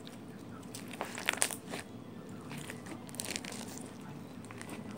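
Hands squeezing and poking foam slime packed with foam beads, giving crunchy, crackling noises. The crackles come loudest at about a second in and again a little past three seconds.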